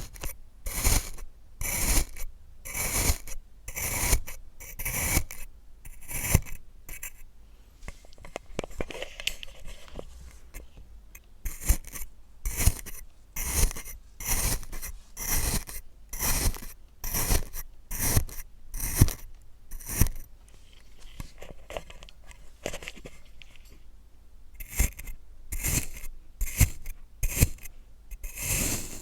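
Kinetic sand being sliced with a blade: short scraping cuts, one or two a second, with a couple of brief pauses.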